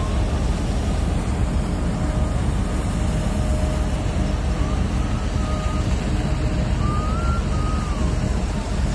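Steady, loud rumbling noise of wind and ship machinery on a tanker's open deck, with a faint, wavering high tone that rises and falls a few times.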